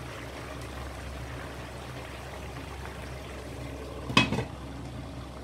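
Chicken wings simmering in a wok of braising liquid at medium heat, a steady bubbling. About four seconds in, a glass lid is set down on the wok with one brief clatter.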